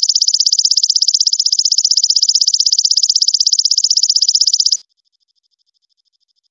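Belalang emas katydid singing: a loud, high, fast and evenly pulsing buzzy trill that cuts off abruptly about five seconds in, leaving only a faint trill.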